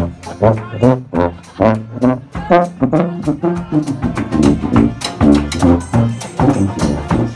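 Dixieland-style jazz band playing on the move, brass instruments over a rhythmic bass line from a sousaphone played close by.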